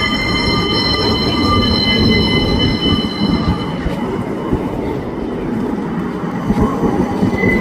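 Tram running past with its wheels squealing in a steady high-pitched whine over a low rumble. The squeal fades about three and a half seconds in and comes back near the end.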